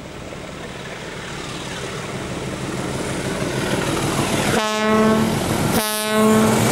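ALCO class 321 diesel-electric locomotive approaching under power, its engine and wheels growing steadily louder. About four and a half seconds in it sounds its horn twice, two steady-pitched blasts just under a second long each, about a second apart.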